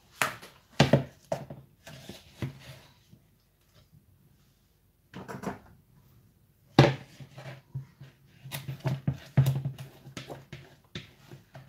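A spatula scraping and knocking butter out of a plastic mixing bowl into a stand mixer's bowl: a run of short knocks and scrapes. The loudest knock comes about seven seconds in.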